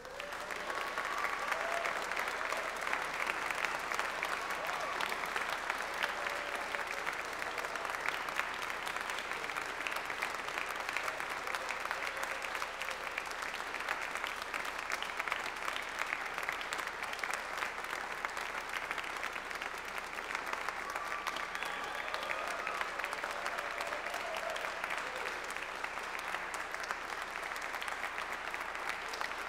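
Concert-hall audience applauding, breaking out all at once and then holding steady.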